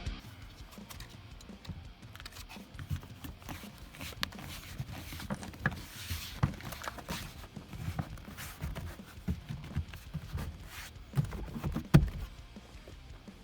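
Scattered clicks, knocks and rustling from hand work on car interior parts, with one louder knock about twelve seconds in.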